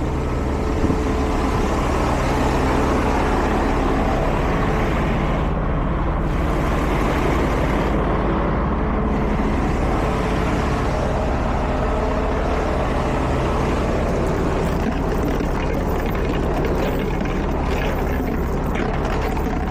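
Heavy diesel engine idling steadily, with a brief knock about a second in.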